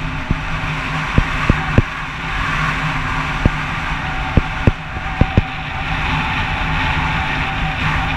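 Steady rushing wind and rolling noise on a GoPro's microphone while riding a fat bike over sand, broken by about ten short, sharp low knocks from the bike and camera mount.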